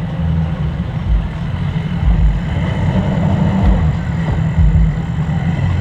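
A large engine running with a steady low rumble, with irregular low thumps over it.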